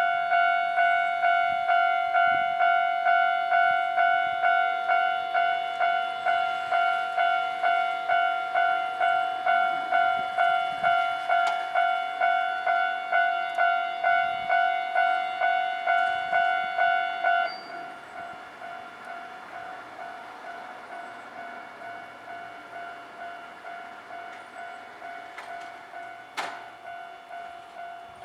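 Japanese railway level-crossing warning bell ringing, about two strokes a second. A little past halfway it drops suddenly to a much lower volume and keeps ringing. A brief sharp sound cuts in near the end.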